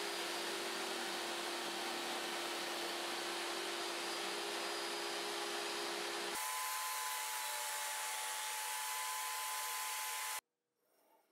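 Jobsite table saw with a dado stack running, a steady motor whine as the dados are cut. Its tone shifts abruptly about six seconds in, and it stops suddenly shortly before the end.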